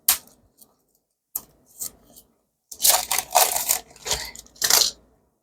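Sealed retail packaging being opened by hand: a few sharp clicks, then about two seconds of tearing and crinkling, with one more tear near the end.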